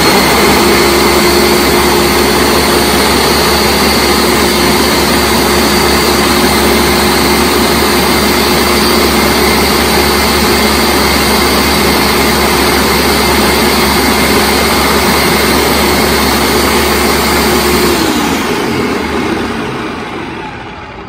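Ninja Professional countertop blender motor running steadily with a whine as it purées a jug of tomato salsa. About three-quarters of the way through it is switched off and the blades spin down, the sound dying away over a few seconds.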